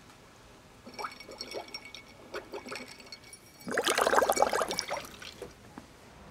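Liquid being poured, a loud gushing stretch lasting just over a second, after a few light clicks of tableware.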